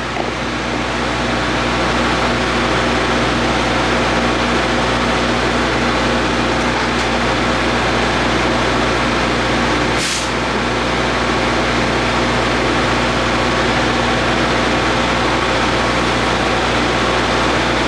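A heavy diesel engine running steadily at idle, with a constant low hum and noise. There is one brief sharp click about ten seconds in.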